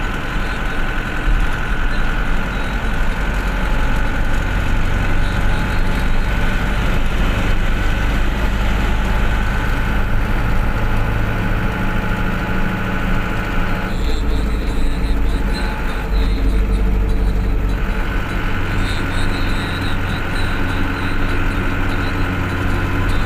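Motor vehicle driving on a highway: a steady low engine drone and road noise with a thin steady whine above it. About two-thirds of the way through, a rush of louder noise lasts for about four seconds, then the steady drone and whine return.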